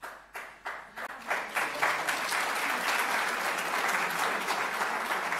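Audience applauding: a few separate claps at first, swelling within about a second and a half into full, steady applause.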